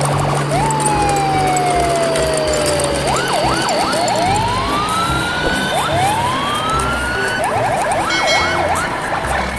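Electronic siren cycling through modes over a steady noisy background. It starts with one long falling tone, then quick up-and-down yelps, two slow rising wails, and a rapid yelp burst near the end.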